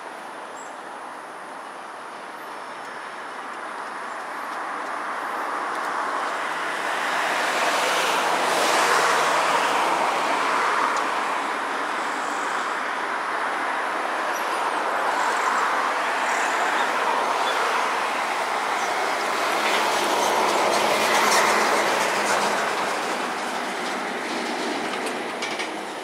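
Rushing noise of a passing vehicle, building up over several seconds and staying loud with two peaks. A few sharp clicks come near the loudest moments.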